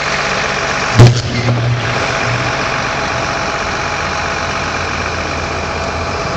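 Vehicle engine idling steadily, with one sharp, very loud bang about a second in followed by a brief low buzz.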